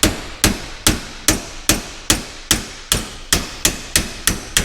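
Steady hammer blows on metal, about a dozen strikes at two to three a second and quickening slightly near the end, driving out a stuck part by hand because no bearing puller was at hand.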